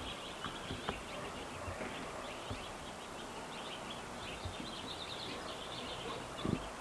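Outdoor ambience with small birds chirping in quick repeated notes over a steady background hiss, with a couple of faint knocks.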